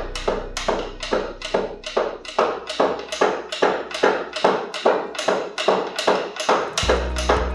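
Soba-cutting knife (menkiri bōchō) chopping through folded buckwheat dough onto a wooden board, an even series of knocks about four a second as the noodles are cut.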